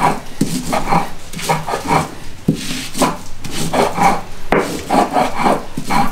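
A hand stone rubbed back and forth over a Maya grinding stone (metate), grinding corn into masa: a rhythmic rasping scrape, about two strokes a second.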